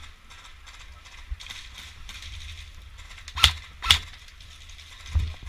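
Two sharp cracks about half a second apart, then a softer knock near the end, over rustling movement and a low wind rumble.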